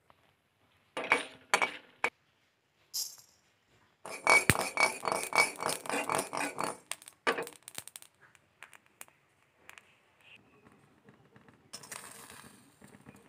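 Whole spices rattling in a dark iron kadai. A few sharp clinks come about a second in, then a dense run of small rapid clicks for about three seconds as coriander seeds hit and are moved around the pan with a wooden spatula. Near the end there is a softer patter as mustard seeds go in.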